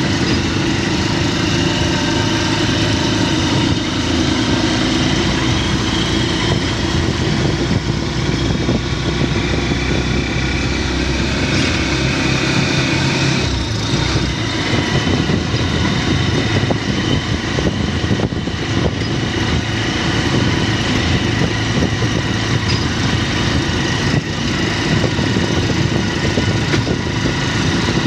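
A vehicle engine running steadily, a continuous loud drone with no break.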